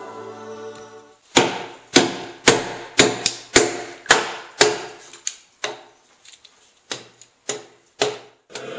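Timber-framing chisel being struck repeatedly to knock the waste out of a saw-kerfed notch in a wooden beam: a run of sharp knocks, about two a second and sometimes quicker, starting about a second in.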